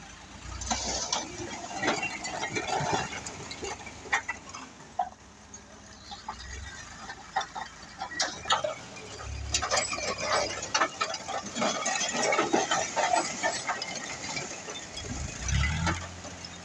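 Fired clay bricks sliding off a tipped tractor trailer and clattering onto a pile, a dense run of knocks and thuds that comes in waves: heavy about a second in, again from about eight to thirteen seconds in, and once more near the end.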